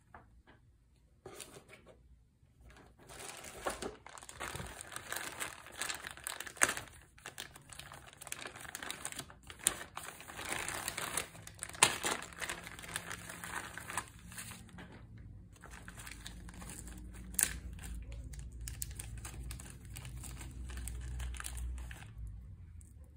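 Clear plastic bags of board-game components crinkling as they are handled and lifted out of the box, with a few sharp crackles; the crinkling pauses briefly partway through.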